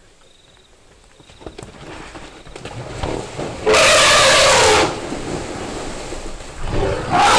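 African bush elephants trumpeting in a shoving match at a waterhole, a sign of agitation among the jostling animals. One loud blast about halfway through lasts about a second, and a second starts near the end, over a low rumbling noise that builds from about two seconds in.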